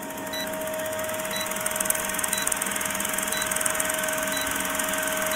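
Film-projector sound effect under a vintage countdown leader: a steady mechanical whir and rattle with hiss and a hum, with a short faint beep once a second.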